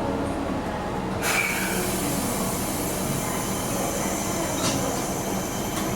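Fukuoka City Subway 1000N series train running, heard from inside the car, with a steady rumble and a hiss that starts about a second in and continues.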